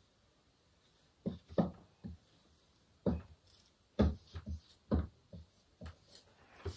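Dry-erase marker writing numbers on a whiteboard: about a dozen short, separate strokes and taps in irregular groups.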